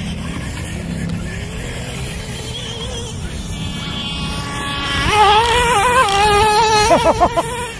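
Small two-stroke nitro engine of an RC short course truck buzzing at high revs. It is faint at first and grows loud about five seconds in as the truck comes close. Its pitch wavers with the throttle, then it blips rapidly on and off near the end.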